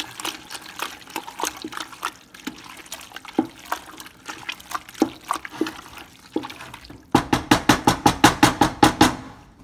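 Pasta shells with melted Velveeta and egg mixture being stirred in a stainless steel pot with a wooden spoon: scattered clicks and scrapes of the spoon. About seven seconds in, a fast, even run of strokes, about six a second, lasts some two seconds and is louder.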